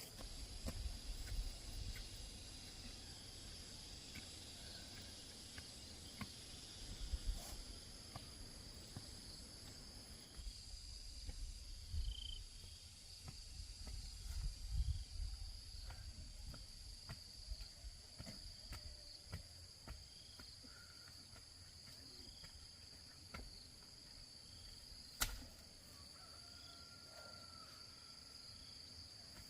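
Steady high-pitched drone of insects, such as crickets or cicadas, with scattered light knocks, thumps and rustles of someone working by hand, and a few faint short chirps.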